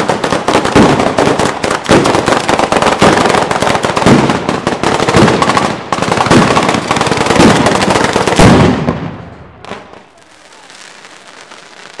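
Italian daytime firecracker batteria: chains of firecrackers strung on overhead wires going off in a dense, rapid, continuous crackle of bangs. After about eight and a half seconds it thins out to a few scattered bangs.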